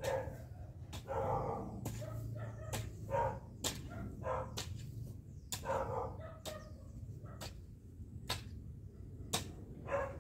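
A long-handled garden tool striking dry ground in a steady rhythm, about once a second. Short animal calls come between the strikes.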